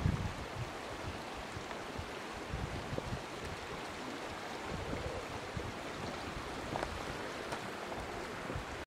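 Small moorland stream running over rocks between snowy banks: a steady rush of water, with irregular low buffeting of wind on the microphone.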